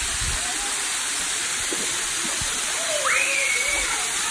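Steady rushing of a waterfall spilling into a shallow pool. About three seconds in, a short high call rises, holds and falls away.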